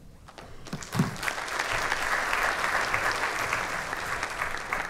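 Audience applauding. The clapping builds over the first couple of seconds, then holds steady.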